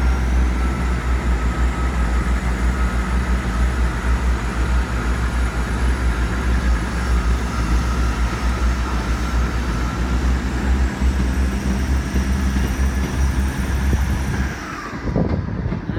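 Class 159 diesel multiple unit running away from the platform with a loud, steady low rumble, which drops off sharply about fourteen and a half seconds in.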